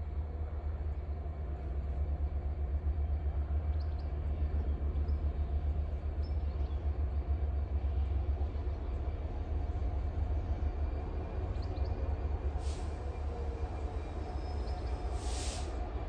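Class 66 diesel locomotive's two-stroke V12 engine running as it approaches, a steady low drone. Two short hisses come near the end.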